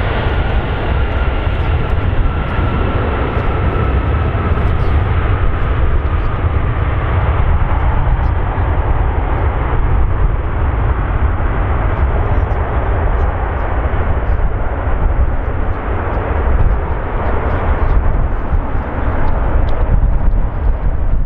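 Lockheed C-5M Super Galaxy's four General Electric F138 turbofans during the landing rollout: a loud, steady jet roar with a deep rumble and a high engine whine that sinks slightly in pitch over the first few seconds.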